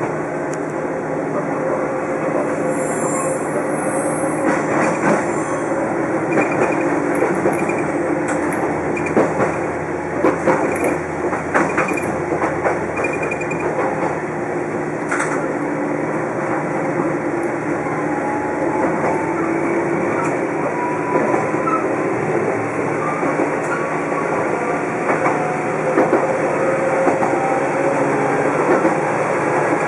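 Toyama Chiho Railway electric train car 14768 running, heard from on board: a steady running noise with scattered clacks of the wheels over rail joints, and a faint whine that rises in pitch about two-thirds of the way through.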